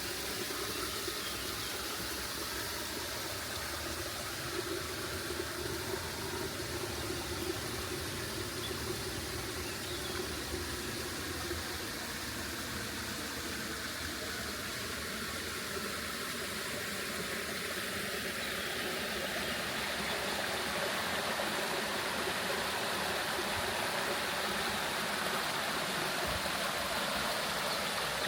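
Waterfall water rushing steadily, growing a little louder and fuller about two-thirds of the way through.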